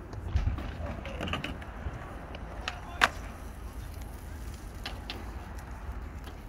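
Outdoor city night ambience: a low, steady rumble of distant traffic with a few scattered sharp clicks and knocks, the loudest one about three seconds in.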